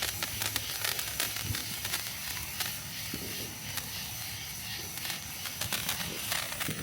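Handheld firework, such as a sparkler, crackling and fizzing as it burns: a steady hiss with many small rapid pops.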